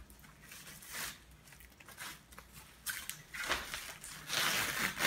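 Plastic packaging rustling and crinkling as the parts are handled, in several short bursts with the longest near the end.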